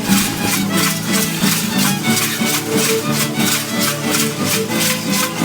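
Traditional dance music: a melody of pitched notes over a steady, rhythmic rattle shaking, about four shakes a second.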